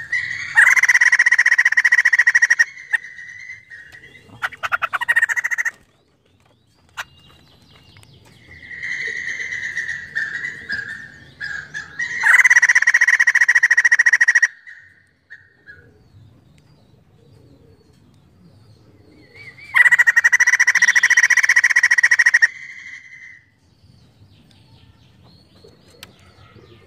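White-crested laughingthrush (poksay jambul) calling: three loud bursts of rapid chattering, each two to three seconds long, about a second in, near the middle and two-thirds of the way through, with softer calls between them.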